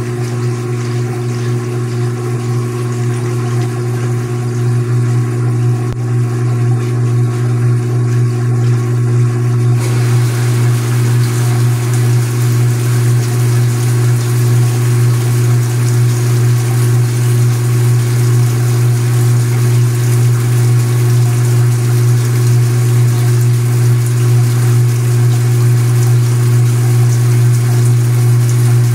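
Speed Queen top-loading washing machine running with a steady motor hum. About ten seconds in, water starts spraying into the turning tub, adding a hiss of water over the hum.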